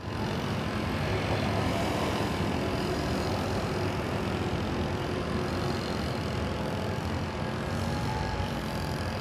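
Wind rumbling on the microphone, with the faint steady whine of a small foam RC plane's drone motors flying overhead.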